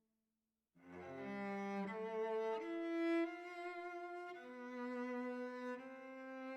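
Background music of slow, sustained bowed strings, starting after a moment of silence under a second in, with held notes changing every second or so.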